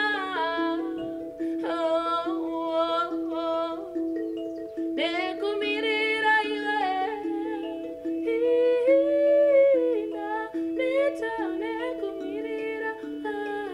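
A woman singing a slow melody with wide vibrato in several phrases with short breaks. Under her voice, steady held low notes change in a repeating pattern.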